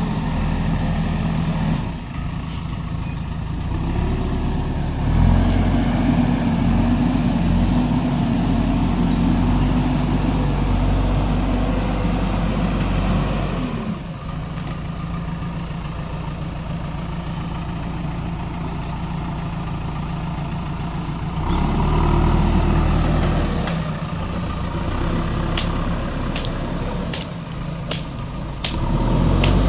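Backhoe loader's diesel engine running, revving up under load twice (about five seconds in and again about two-thirds of the way through), dropping back to a lower, steadier speed between. A series of sharp clicks or knocks near the end.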